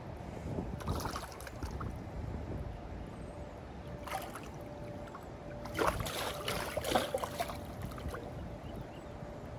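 A small fish splashing and thrashing at the water's surface in shallow water: a few brief splashes, the biggest run of them about six to seven seconds in.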